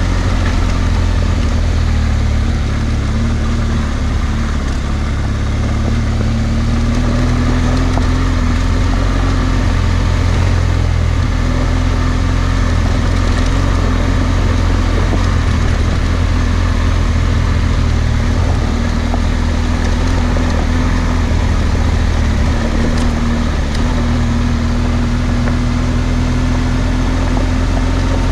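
BMW R1200GS Adventure's boxer-twin engine running steadily at low, nearly even revs while the motorcycle is ridden along a gravel track.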